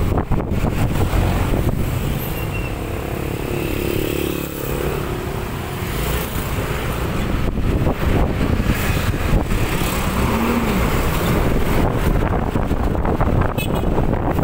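Wind rushing over the microphone and road and traffic noise while riding a Yamaha NMAX scooter, with the scooter's engine running underneath.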